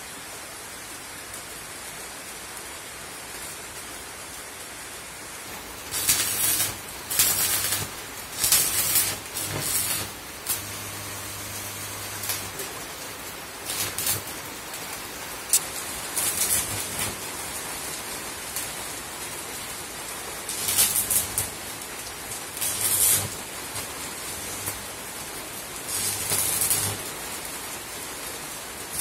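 Stick arc welding on steel bars: a series of short welds, each a crackling hiss lasting a second or two with a low hum beneath it. The welds begin about six seconds in, after a steady faint hiss.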